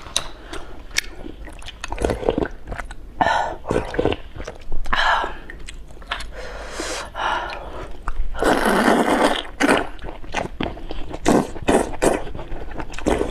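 Close-miked eating of rice noodles: chewing and mouth noises with many short clicks, and a longer noisy slurp about eight and a half seconds in.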